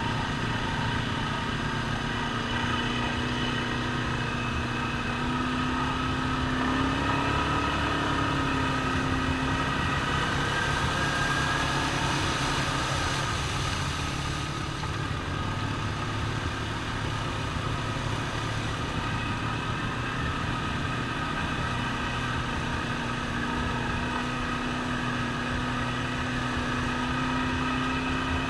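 ATV engine running steadily as the quads drive through a shallow creek, its pitch shifting only slightly, under a steady hiss and splash of water thrown off the tyres.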